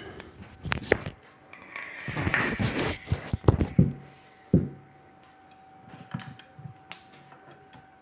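Handling noise as the camera is picked up and moved: scattered clicks, rubbing and knocks, with a dull thump about four and a half seconds in. A faint steady tone runs through the second half.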